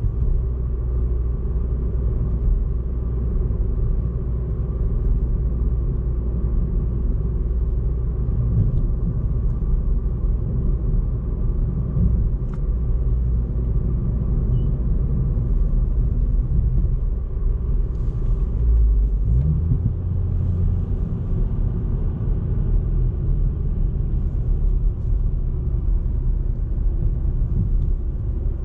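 Ford Fiesta ST Mk8's 1.5-litre turbocharged three-cylinder engine running steadily while driving, with a continuous low rumble of engine and road noise. The engine note changes about two-thirds of the way through.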